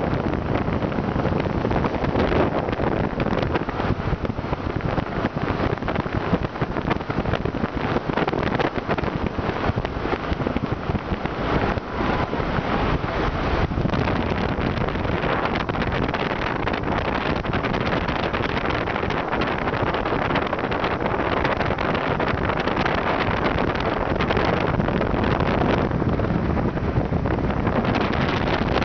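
Wind buffeting the microphone held out of a moving vehicle's window, over steady road and engine noise.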